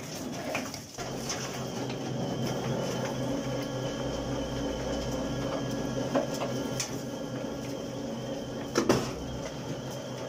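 Electrically powered Hydrox stone-loading digger running with a steady machine hum made of several held tones. A few sharp knocks come through about six, seven and nine seconds in.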